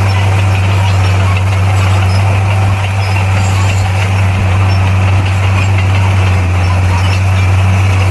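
Heavy diesel earthmoving machine engine running steadily with an even, low hum.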